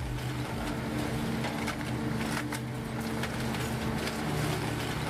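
A heavy machine's engine running steadily, with scattered short metal knocks and scraping over it.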